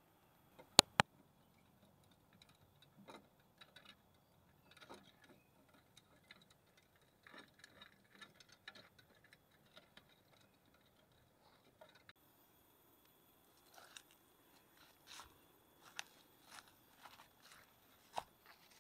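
Two sharp clicks about a second in, then faint scattered rustling and tapping. In the last few seconds, irregular footsteps crunch through dry bamboo leaf litter.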